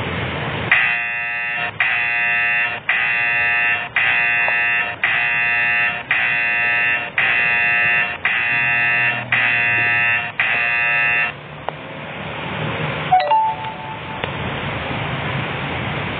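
Smartphone order alert from the Gojek GoPartner driver app: a bright electronic ringtone repeating about once a second, ten times, then stopping. After it a steady hiss, rain on the phone's surroundings, with one short ding about 13 seconds in.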